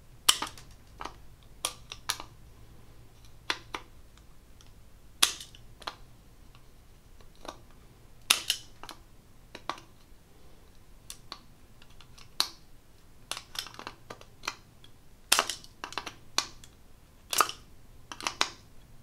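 Eclipse 900-215 hand-held punch-and-die nibbler punching through the wall of a plastic enclosure: a string of sharp, irregularly spaced clicks, one for each squeeze of the handles, some coming close together in pairs.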